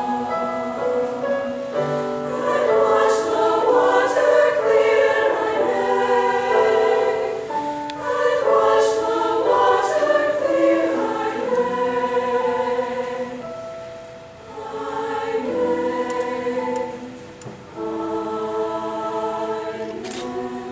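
A large mixed choir of men's and women's voices singing in harmony, holding long chords, with two brief breaks between phrases about two-thirds of the way in.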